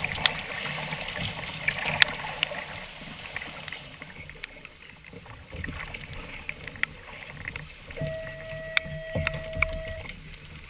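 Choppy sea water sloshing and slapping against the hulls of a trimaran kayak, with scattered sharp knocks and clicks of gear on the boat. Near the end a steady tone sounds for about two seconds.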